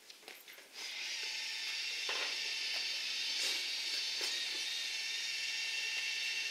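A steady high hiss sets in about a second in and holds, with a few light clicks and knocks over it.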